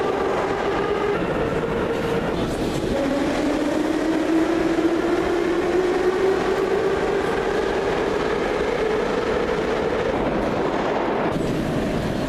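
Metro train pulling out of the station: the whine of its electric motors rises steadily in pitch as it gathers speed, over the rumble of its wheels. Near the end the higher part of the noise drops away abruptly.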